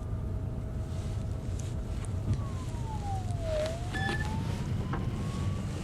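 Steady low rumble of a car driving, heard from inside the cabin. A faint thin tone runs over it, dipping in pitch and rising again about midway.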